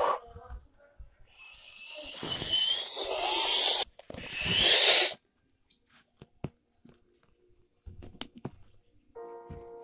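Two loud, hissing dinosaur-style roars: the first builds over about two and a half seconds, the second is about a second long. A few soft taps follow, and piano music starts near the end.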